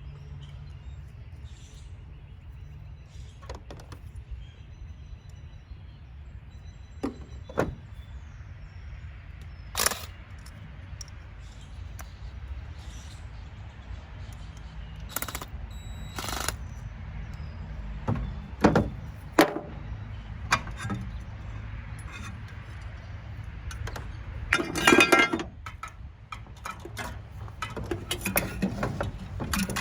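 Scattered sharp metal clinks and knocks as parts of a Rinnai tankless water heater are handled and taken apart for scrap, with a short rattling clatter near the end, over a steady low hum.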